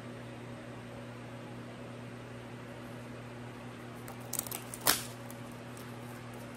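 A steady electrical hum, then about four seconds in a few clicks and one sharp crackle as the plastic packaging of a mascara and eyeliner set is handled.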